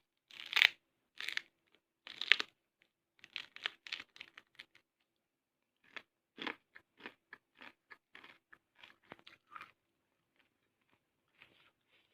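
A person biting into and chewing crunchy raw fruit, with three loud crunches in the first couple of seconds, then mouth-close chewing that settles into an even rhythm of about three chews a second.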